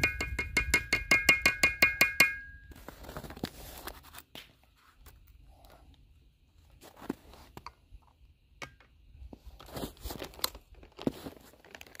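Metal mesh tube bird feeder rattling and ringing in a rapid, even run of metallic clicks as it is handled and filled with seed from a scoop; this stops a little over two seconds in. Then come quieter handling knocks and a few crunching footsteps in snow.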